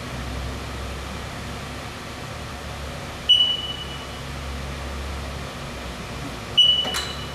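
Haas TM-1 CNC mill standing powered up with a steady low hum. Its control gives two short high beeps about three seconds apart, and the second is followed by a click.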